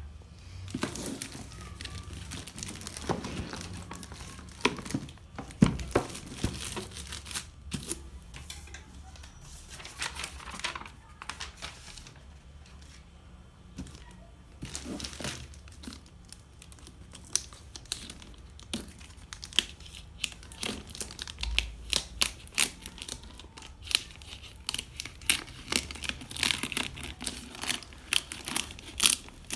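Keyboard packaging being opened and handled: plastic and paper crinkling and tearing, with irregular clicks and knocks.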